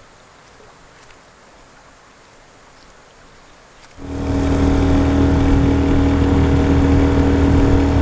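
Faint outdoor ambience, then about halfway through a boat's outboard motor comes in suddenly, loud, and runs at a steady pitch.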